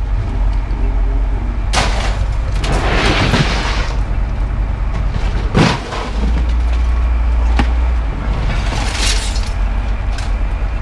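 Light-iron scrap being thrown from a pickup bed onto a pile, landing in several crashes and sharp metal clanks, over a steady low rumble.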